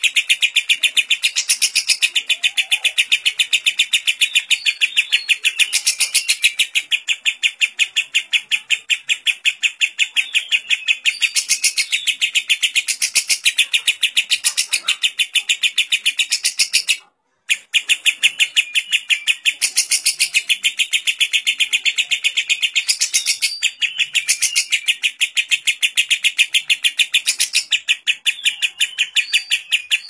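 Fischer's lovebird singing a long, rapid, unbroken chattering trill (the 'ngekek panjang' of lovebird keepers), with louder high notes breaking through every few seconds; its song carries mimicked kapas tembak phrases. The sound drops out for a moment a little past the middle.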